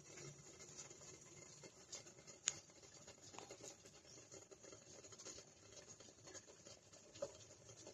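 Near silence: faint room tone with light scratchy crackles and one sharp click about two and a half seconds in.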